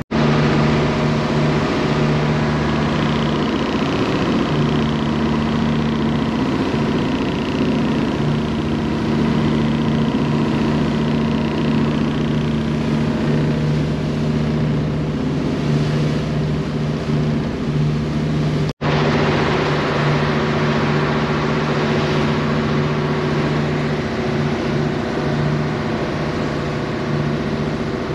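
Ferry engine running with a steady low drone under a constant rushing noise. The sound cuts out for an instant about two-thirds of the way through and resumes unchanged.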